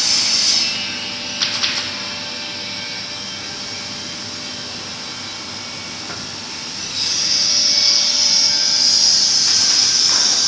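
Steady noise of a 4-axis ATC CNC router's machinery running. A loud, high hissing rush fades after the first half-second and returns about seven seconds in, with a few light clicks about a second and a half in.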